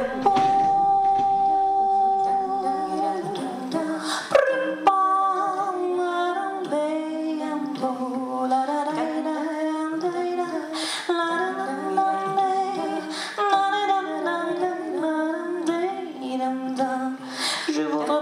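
A woman singing a wordless melody that opens with a long held note. A sharp click sounds about four seconds in.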